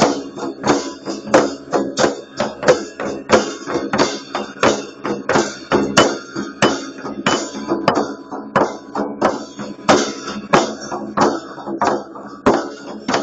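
Large hand-held frame drums beaten in a steady, driving rhythm, about three strokes a second, each stroke ringing briefly.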